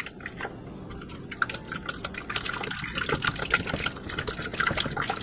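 A rubber spatula stirring a shallow pool of water mixed with oil, sugar, dry milk and salt in a bread-machine loaf pan: liquid swishing and lapping, with small irregular taps and scrapes of the spatula against the pan.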